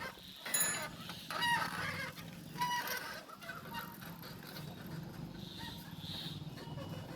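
Three short, nasal honking calls in the first three seconds, then a low steady background hum.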